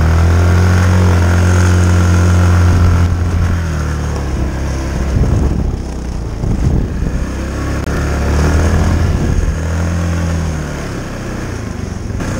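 Yamaha Kodiak 450 ATV's single-cylinder four-stroke engine running under throttle while the quad is ridden through snow. The note is steady at first, wavers and breaks up for a few seconds in the middle, steadies again, and eases off a little near the end.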